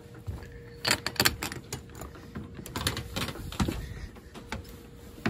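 Irregular clicks and knocks of hard objects being handled, bunched about a second in and again around three seconds, over a faint steady hum.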